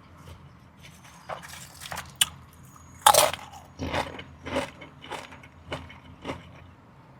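Close-miked mouth sounds of eating Chipotle food: a loud crunchy bite about three seconds in, then steady chewing with a wet crunch about every half second.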